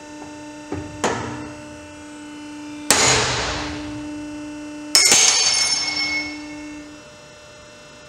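A Petzl aluminium carabiner snapping under load in a break-test bed at about 6,067 lb: a couple of small sharp cracks, then about three seconds in a loud bang as it fails. About two seconds later a second loud metallic bang with a ringing tail. A steady hum runs underneath.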